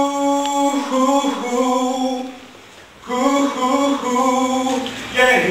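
A solo voice singing unaccompanied: long held notes in two phrases, with a short pause about two seconds in, and a new phrase starting near the end.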